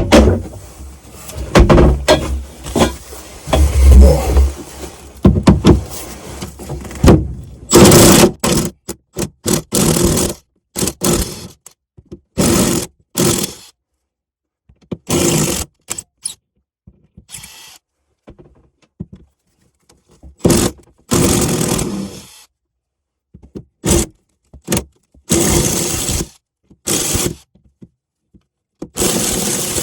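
Metal scraping and knocking with short bursts of a power tool, working at a bolt that has snapped off inside a chain-plate hole. The first several seconds are a continuous stretch of working noise. After that the sound comes in many short bursts, each stopping abruptly.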